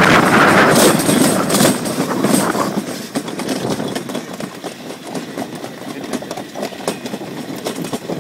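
Summer bobsled rolling down a stainless steel trough track: a loud rumble and rattle of the sled on the metal that dies down after about three seconds as the sled slows, leaving a lighter clatter.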